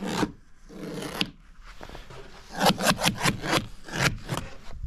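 A pocket knife multi-tool scraping against the screening and its wooden frame in a series of short strokes, with a quick run of about five strokes near the middle.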